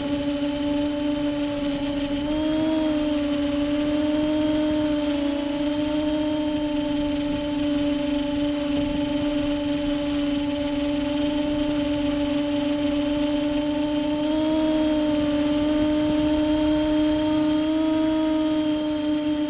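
Multirotor drone's brushless motors and propellers humming steadily, with a high thin whine above. The pitch rises briefly a few times as the throttle shifts. The owner suspects these strange sounds come from the ESCs or the motor bearings.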